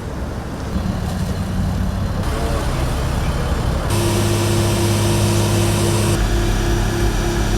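A large vehicle's engine runs steadily with a low rumble. The sound changes abruptly about two seconds in and again about four seconds in, after which a steady engine hum is clearer.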